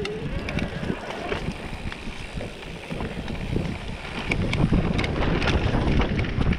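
Mountain bike riding down a dirt singletrack: wind on the microphone and tyres rolling over dirt and dry leaves, with frequent sharp clicks and rattles from the bike over bumps. The rumble gets louder about four seconds in.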